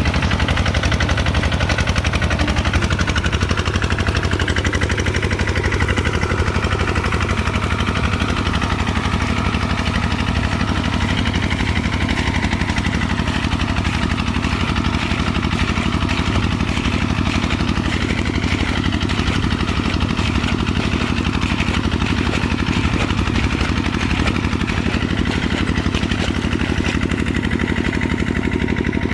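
Kubota RT140 single-cylinder diesel engine running steadily, a constant rapid chugging.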